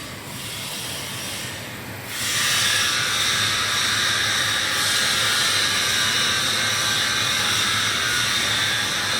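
A steady hiss in the workshop that steps up sharply about two seconds in and then holds steady.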